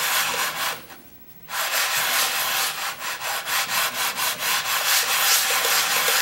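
Cast iron sole of an old Record trying plane scraping back and forth over wet 3M wet/dry sandpaper, being lapped flat. It breaks off briefly about a second in, then runs on in continuous strokes.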